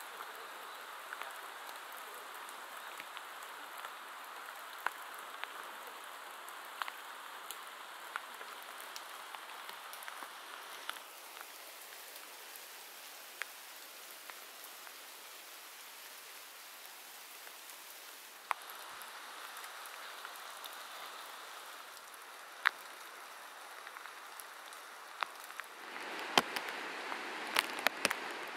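Rain falling steadily through the forest canopy, a soft even hiss with single drops landing close by as sharp ticks. About two seconds before the end the rain noise grows louder and fuller.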